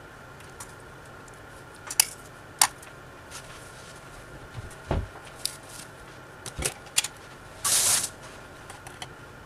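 Kitchen handling sounds: a few sharp clicks and knocks of jars and utensils set down and picked up on a granite counter, with a short scraping rustle about eight seconds in, over a faint steady high hum.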